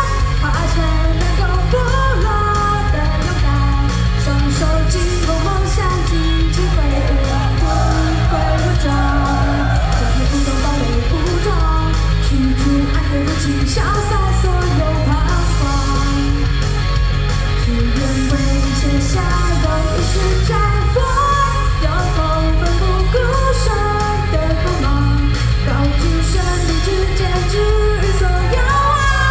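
A female singer singing live into a microphone over loud pop-rock backing music, with no break in the song.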